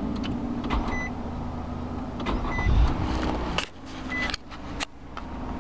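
Cabin of a 2010 Nissan Murano with its 3.5-litre V6 running: a steady low hum, a short high electronic warning chime about every second and a half, and several sharp knocks and clicks from handling.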